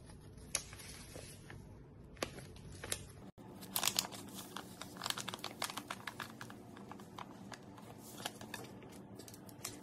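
Plastic seasoning sachet of tamarind soup base crinkling and crackling as it is handled and torn open by hand, the crinkles thickest about four seconds in, then scattered rustles.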